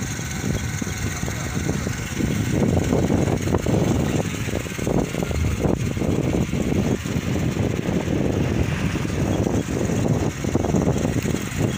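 Motorcycle riding along at speed, its engine running under heavy, gusty wind buffeting on the microphone, which grows louder a couple of seconds in.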